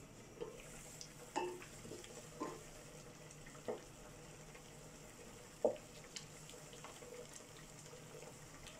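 A glass pot lid is lifted off, then a wooden spatula stirs sliced carrots in a little simmering liquid in a pot, knocking against the pot several times over a faint steady sizzle.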